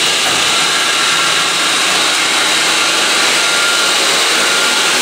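Irrigation pump station running in fill mode: a vertical electric pump motor and the water it pushes through the slightly opened valve make a steady, loud rushing noise. A faint steady whine joins in past the middle.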